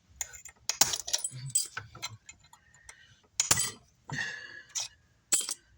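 Metal tools clicking and clinking against small metal parts of a car amplifier being taken apart: irregular sharp clicks with short scraping rustles, about seven in all.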